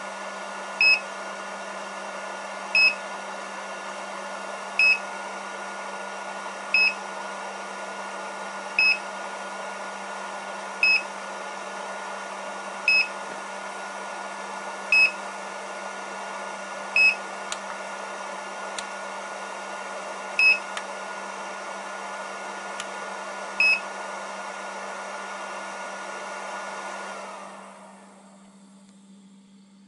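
Hobby LiPo charger's cooling fan running steadily while it discharges a battery, with one short beep from the charger about every two seconds and a few faint button clicks. Near the end the beeping has stopped and the fan winds down and goes quiet.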